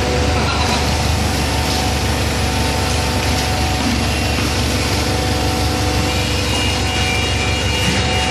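Steady machine drone of a hydraulic baler running, its motor and pump holding several constant tones.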